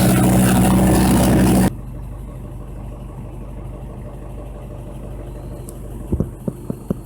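Kyoritsu KCM130BL wood chipper running loud under load while shredding, then abruptly dropping to a quieter steady engine run with no material in it. Near the end comes a rapid even series of knocks, about four a second.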